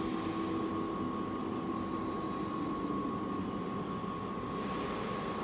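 Steady mechanical hum with a constant high-pitched whine, with no knocks or clicks standing out.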